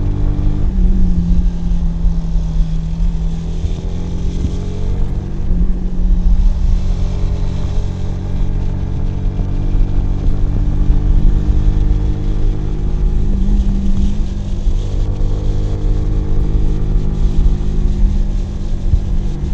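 Kawasaki W175's air-cooled single-cylinder engine and exhaust under way, with engine speed stepping up and down a few times as the throttle and gears change, over a low rumble of wind and road.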